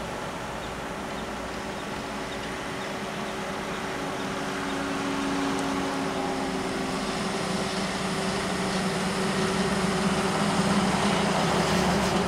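Heavy Ashok Leyland multi-axle tanker trucks driving past, their diesel engines droning steadily over road noise and growing louder as the trucks draw near.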